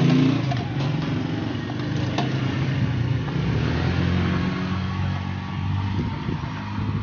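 An engine running steadily, with a low, slightly wavering hum, joined by a few light knocks from the plastic speaker cabinet as it is handled.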